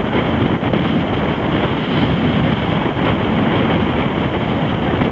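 Steady, loud wind buffeting the microphone over water rushing past the hull of a racing sailboat sailing heeled over in choppy water.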